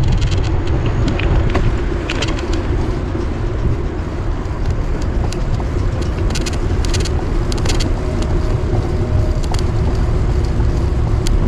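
Wind buffeting the microphone of a handlebar-mounted camera on a moving bicycle, with steady tyre hum from the pavement and scattered sharp clicks and rattles from the bike.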